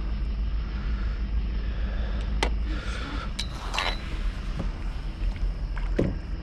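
Scattered clicks and knocks of handling and gear in a small boat, with a short rushing noise about four seconds in, over a steady low rumble.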